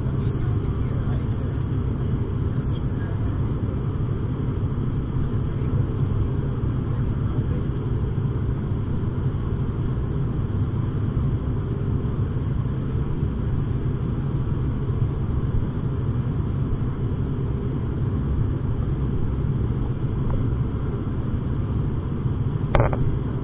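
Steady propeller and engine drone of an ATR 72's twin turboprops heard inside the cabin, deep and unchanging at climb power. One brief sharp click near the end.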